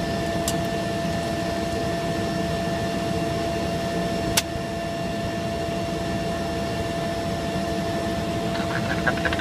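Single-engine propeller aircraft heard from inside the cockpit: a steady engine and propeller drone with a steady whine over it. One sharp click comes about four seconds in.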